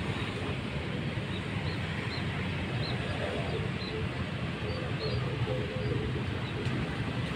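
Steady low rumble of harbour ambience with a string of short high chirps, about two a second, through the middle of the stretch.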